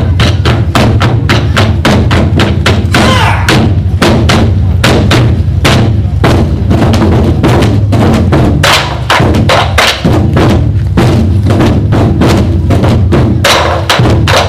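A group of drums played together in a fast, loud, driving rhythm, with several strokes a second and deep booming drums underneath.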